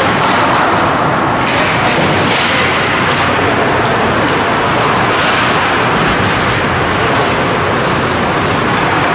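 Steady, loud ice-rink noise during a hockey game, with several brief hissing surges of skate blades scraping the ice.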